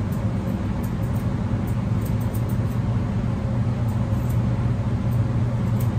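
Steady low motor hum, with faint light snips of grooming shears trimming the fur around a dog's ear.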